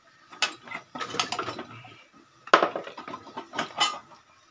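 Metal tools and engine parts clinking and clanking as they are handled and set down, a string of sharp separate knocks with the loudest about two and a half seconds in.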